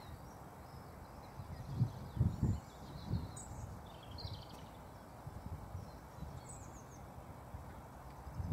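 Quiet outdoor ambience with a few faint, short bird chirps in the background, and a few low muffled bumps about two to three seconds in.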